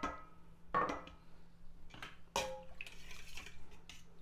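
Stainless-steel kitchenware clinking: a small metal pitcher set down on the counter and a wire whisk knocking and stirring in a steel mixing bowl of batter. A few ringing metal strikes come in the first half, then quicker, fainter ticks of whisking.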